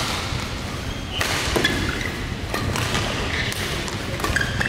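Badminton doubles rally: rackets striking the shuttlecock about once a second, with players' footfalls and brief squeaks of shoes on the court mat.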